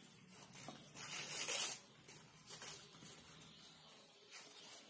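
Crepe paper rustling and crinkling as a strip is wound tightly around a wire stem, in soft, uneven rustles, the loudest about a second and a half in.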